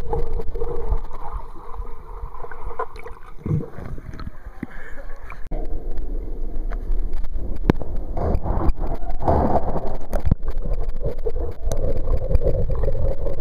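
Pool water heard through a submerged waterproof camera's microphone: muffled rushing and gurgling of moving water and bubbles, with a few sharp knocks.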